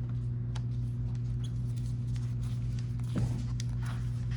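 Phillips screwdriver driving small screws into a handlebar mount clamp: faint, scattered clicks and scrapes of the tool and screws, with a short squeak about three seconds in, over a steady low electrical hum.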